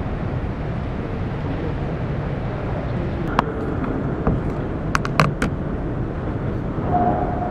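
An iPad in a case handled and set down on a wooden table: a sharp tap about halfway through, then a quick cluster of clicks and taps a little later, over a steady low rumble of background noise. A steady tone comes in near the end.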